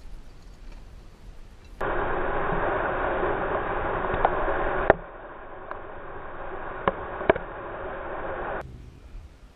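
Motorboat running at speed: a loud, steady rush of wind and water spray past the hull, with a few sharp knocks. It starts and stops abruptly and drops in level about halfway through.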